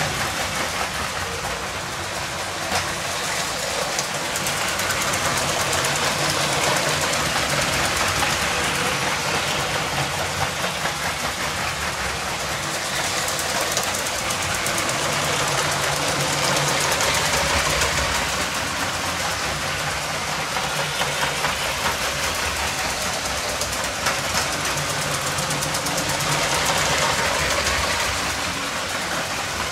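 Lego electric trains running on plastic track: a steady whirr of small train motors with the fine rattle of plastic wheels over the rails.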